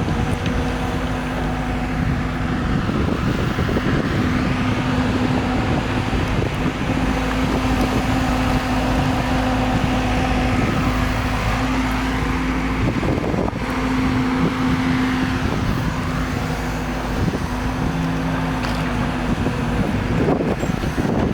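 Hyundai R140LC-9 crawler excavator's diesel engine running steadily as the machine works, a constant hum with some faint rises and falls in pitch now and then.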